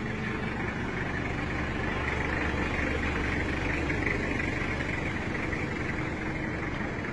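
A vehicle engine running steadily, with an even rushing noise over it.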